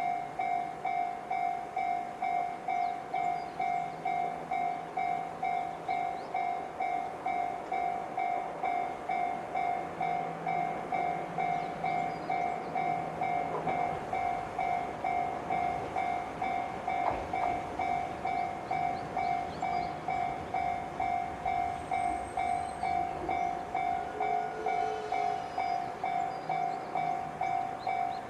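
Japanese railway level-crossing alarm in the JR standard sound, ringing its electronic ding over and over at an even pace of about two strokes a second, the crossing warning that a train is approaching. A single knock sounds a little past halfway.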